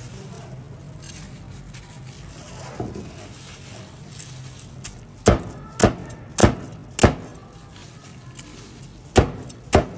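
A low steady background hum, then, about five seconds in, a run of sharp knocks about 0.6 s apart: four in a row, then two more near the end.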